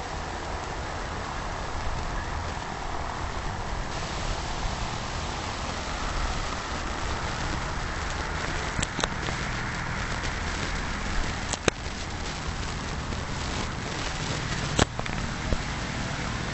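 Wind buffeting the microphone, with a paramotor's engine running under it and growing louder near the end as the wing comes in low over the field. A few sharp clicks break through.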